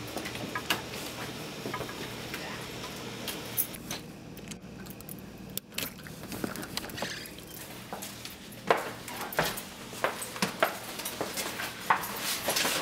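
Keys jangling and a brass doorknob and lock clicking and rattling as the door is unlocked, with scattered knocks of bags and a plastic cooler being handled. The clicks and knocks come thicker in the second half.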